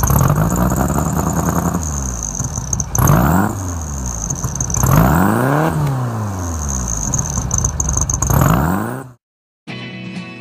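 Car engine revving repeatedly, its pitch climbing and falling several times, with a high whine running alongside. It cuts off abruptly about nine seconds in.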